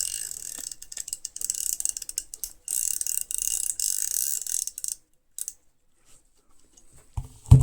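Metal spanners being handled, with rapid fine clicking and rattling for about five seconds, loudest in the second half of that stretch. A dull knock comes near the end.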